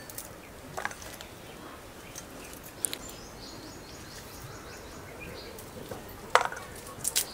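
Quiet outdoor background with a high, rapid chirping trill in the middle, broken by a few sharp clicks and taps, the loudest about six seconds in and two more near the end. The clicks come from hand work: peeling garlic with a small blade and handling a chicken against a fixed cutting blade.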